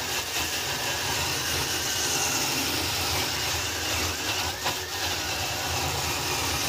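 A wire wheel brush on a cordless drill scrubs rust and crust off the threads of a seized drum-brake self-adjuster bolt clamped in a vise. A steady harsh scratching runs over the drill motor's whine, which wavers in pitch, and the noise stops suddenly near the end.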